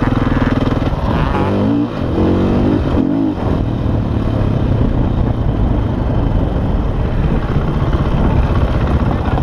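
Onboard sound of a KTM enduro dirt bike's engine running under way, the revs rising and falling over the first few seconds, then running steadily.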